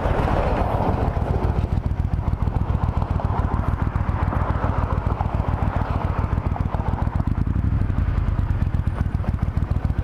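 Triumph Thunderbird Storm's parallel-twin engine running steadily, its low pulsing firing beat even throughout.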